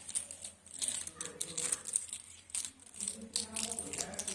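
Kinder Surprise eggs being handled and unwrapped: foil crinkling, with quick clicks and rattles of the eggs and their plastic capsules.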